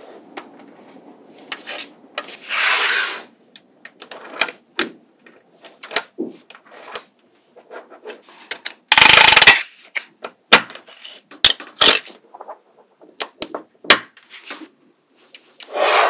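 Small magnetic balls clicking and snapping together, in scattered sharp clicks, with a longer clattering burst about nine seconds in.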